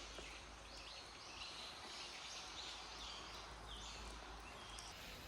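Faint outdoor ambience with birds calling: short high chirps repeating about twice a second, some sliding down in pitch.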